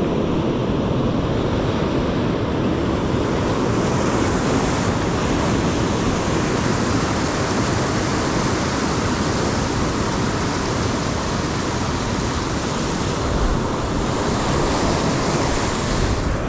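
Ocean surf breaking and washing over a rocky shoreline: a steady rushing wash that swells louder as waves break, about four seconds in and again near the end.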